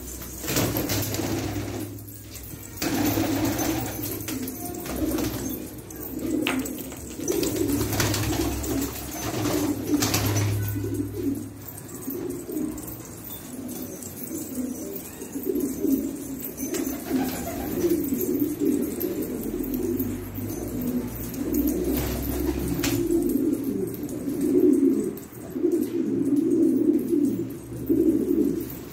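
Many domestic pigeons cooing at once, their calls overlapping continuously, with a few brief wing flaps.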